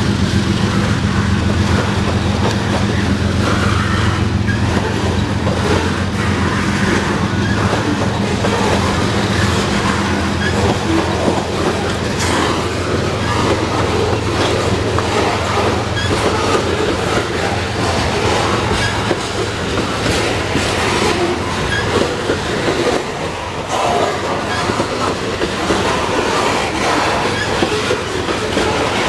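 Covered hopper cars of a freight grain train rolling past close by, their wheels clacking steadily over the rail joints with a continuous rumble. A low drone underneath fades out about a third of the way through.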